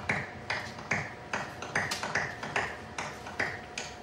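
A steady percussive beat: crisp, evenly spaced taps about two and a half times a second, each with a short ringing tail.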